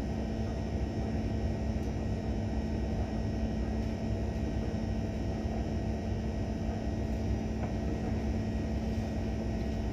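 Boat engine running steadily: a continuous low rumble with a constant humming tone over it.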